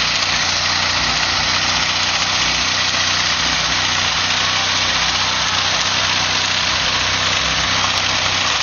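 A car engine running at a steady speed under a loud, even hiss, the sound of a burnout with the tyres spinning on the spot.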